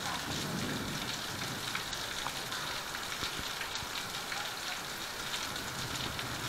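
Heavy rain falling steadily: an even hiss with the tap of many separate drops.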